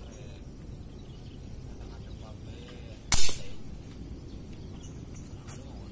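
An air rifle fired once: a single sharp shot about three seconds in, which fades quickly.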